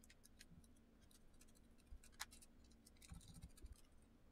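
Faint, scattered small clicks and ticks of a hand screwdriver turning screws into a cordless drill's plastic housing, with a slightly sharper click about two seconds in and a short cluster a little after three seconds.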